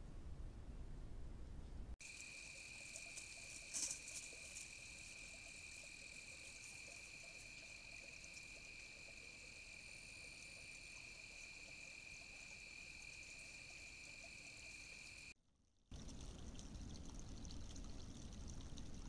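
A faint, steady, high-pitched night insect chorus runs from about two seconds in for roughly thirteen seconds, with a short burst of clicks about four seconds in. Low rumbling noise comes before it and returns after a brief dropout near the end.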